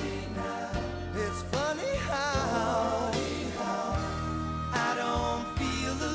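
Pop ballad: a male lead voice sings wavering, drawn-out notes over a steady bass line and drums.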